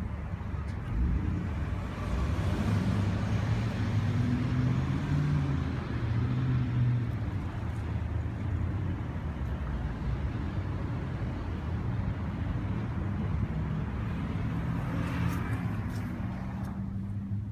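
Road traffic with a car engine running close by: a low, steady rumble that drops away sharply about a second before the end.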